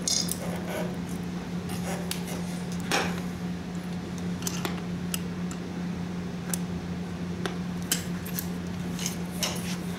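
Scattered metallic clinks and knocks from a Ford tractor starter motor with a Bendix drive being picked up and turned over in the hands, over a steady low hum.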